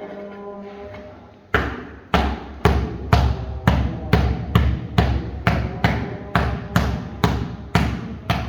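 Repeated heavy blows in a steady rhythm, about two a second, starting about a second and a half in: hammering.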